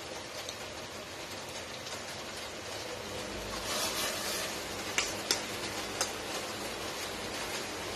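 Pot of boiling water hissing and bubbling as raw chicken pieces are lowered in with metal tongs: a brief splash about halfway, then three sharp clicks of the tongs against the steel pot and bowl.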